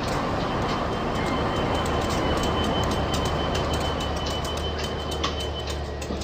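Train sound, most likely a CC201 diesel-electric locomotive: a steady running rumble and hiss with a low hum, a thin high whine, and irregular sharp clicks throughout.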